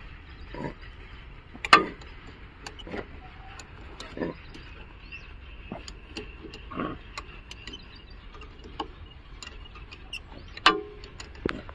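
Scattered clicks and metal clinks of a spanner and bolts being handled on a rotavator's drive joint while a shear bolt is fitted, the loudest knocks about two seconds in and near the end.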